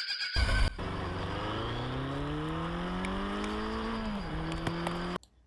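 An engine accelerating, its pitch climbing steadily, then dropping about four seconds in as at a gear change and holding there, before it cuts off suddenly. A loud thump comes just before it starts.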